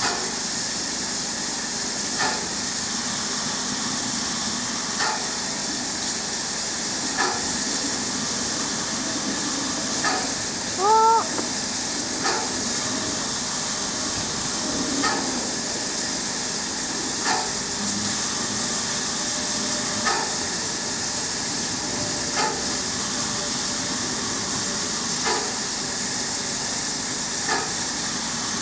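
Freight train passing: a steady rushing hiss with a faint click every two to three seconds, and a short rising squeal about eleven seconds in.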